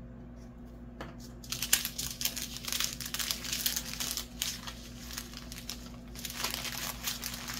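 Small plastic bags of diamond painting drills crinkling as they are handled and arranged, in two bouts of rustling with a click just before the first.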